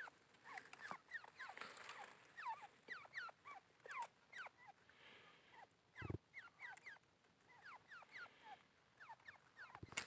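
Faint chirping of small birds: many short, quickly falling chirps, several a second, overlapping. There is one soft thump about six seconds in.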